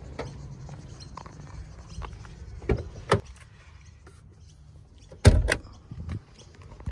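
Car door being opened and handled: two sharp clicks about three seconds in, then a louder pair of knocks a couple of seconds later and a smaller one after that, over a low steady background rumble.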